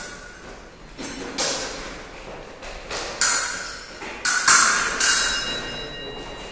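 Fencing bout: steel blades clashing and feet striking the piste, a string of sharp, irregular metallic hits that ring out in a large hall, the loudest about three and four and a half seconds in.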